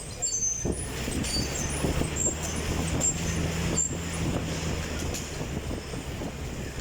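Stationary exercise bike with a fan, running: a steady rumbling whir, with a low hum that holds for a few seconds in the middle.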